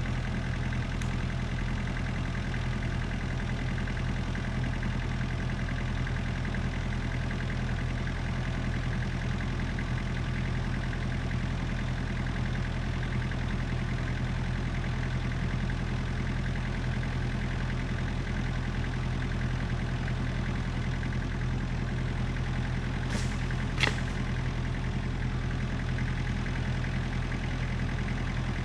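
Kubota excavator's diesel engine idling steadily, with two sharp clicks close together about three-quarters of the way through.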